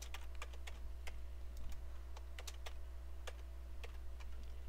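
Computer keyboard keystrokes clicking in quick, irregular runs as a short shortcut sequence is typed again and again, over a steady low hum.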